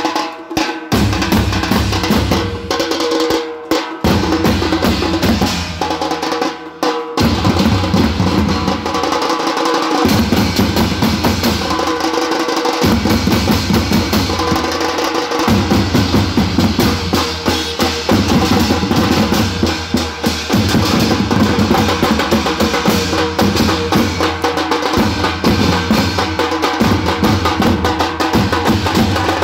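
Teenmar street drumming: several large barrel bass drums and smaller side drums beaten with sticks in a fast, driving, continuous rhythm. The deep drum strokes drop out briefly a few times in the first seven seconds, then carry on steadily.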